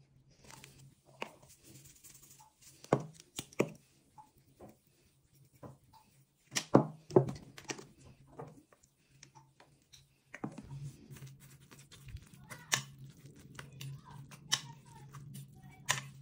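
Kitchen handling sounds: scattered clicks and knocks of a knife and spoon against an enamel baking dish as ingredients are added and spread, the loudest a cluster of knocks about seven seconds in, over a low steady hum.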